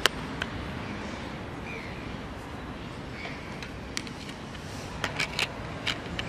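Small sharp plastic clicks as the LG G4's battery is pressed into its bay and its back cover is snapped on: one loud click right at the start, a softer one just after, then a run of quick snaps about five to six seconds in as the cover clips home. Steady background noise underneath.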